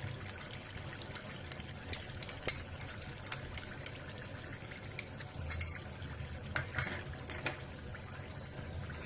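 Chicken masala cooking in oil in a frying pan on medium heat: a faint, steady simmer with scattered sharp pops and crackles.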